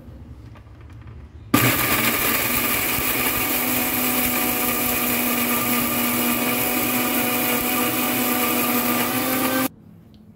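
Electric kitchen mixer grinder with a stainless steel jar grinding spices, garlic, vinegar and water into a fine wet masala paste. The motor switches on about a second and a half in, runs steadily at full speed for about eight seconds, then cuts off suddenly.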